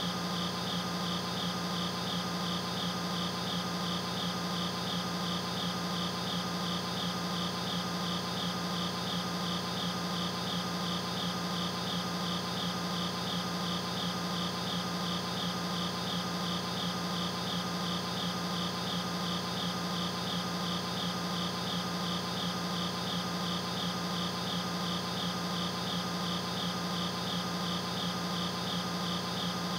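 Crickets chirping steadily in a fast, even pulse over a constant low hum.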